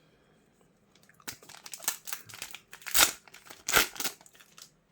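Crinkling and crackling of a foil trading-card booster pack wrapper being handled and torn open. It starts about a second in, with two louder crackles about three and four seconds in.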